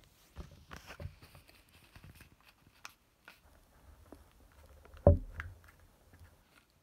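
Faint rustling and light clicks of a folded paper airplane being pressed and creased with the teeth. A single dull thump comes about five seconds in.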